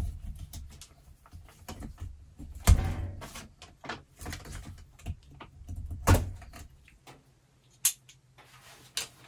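Scattered clicks, knocks and rustling of electrical cable being handled and stripped at a wall outlet box, with two heavier knocks about three and six seconds in and sharper clicks near the end.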